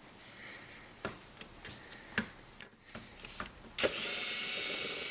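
A few light knocks and clicks of handling, then about four seconds in a power drill runs steadily for just over a second, driving out a screw that holds the dishwasher's kick plate.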